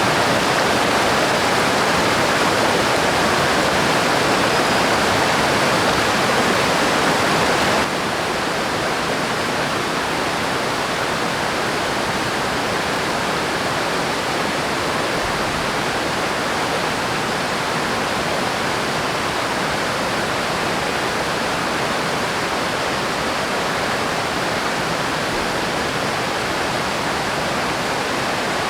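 River water rushing steadily. About eight seconds in it drops suddenly to a quieter, duller rush and stays that way.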